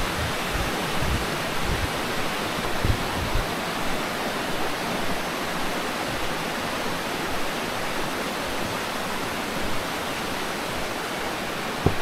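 Rocky stream rushing noisily over stones, a steady, even rush of water. A short knock near the end.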